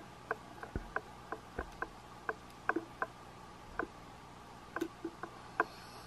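Underwater sound picked up through the camera: irregular sharp clicks, about two or three a second, over a steady low hiss, with two low thumps about a second in.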